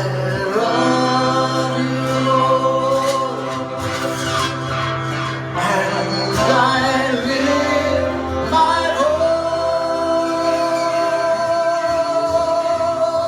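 Live worship music: a man singing long held notes over guitar accompaniment, ending on one long sustained note.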